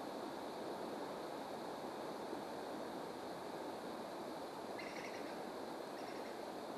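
Steady rush of flowing river water, with a short bird chirp about five seconds in and a fainter one a second later.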